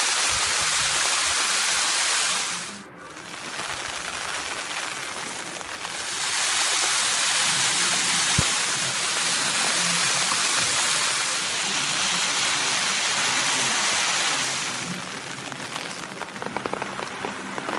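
Rain falling steadily, a dense even hiss. It drops away briefly about three seconds in and eases near the end, where faint crackles come in.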